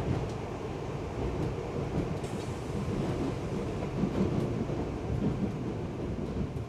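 Cabin running noise of a JR Hokkaido 785 series electric train: a steady low rumble from the wheels and running gear, with a few faint clicks, as the train nears its terminal station.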